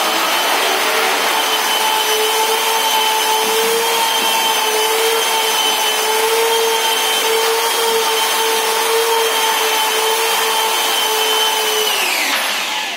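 Handheld electric polisher with a buffing pad running against a marble wall panel, dry-buffing the stone to a shine after pad polishing: a steady whine with the hiss of the pad rubbing the stone. Near the end it is switched off and its whine falls as the motor spins down.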